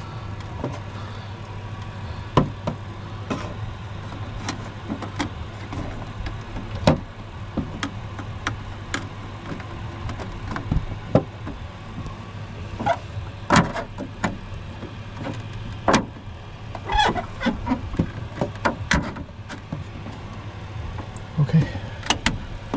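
Scattered clicks and knocks of a freshly washed part being fitted back into place by hand, over a steady low hum.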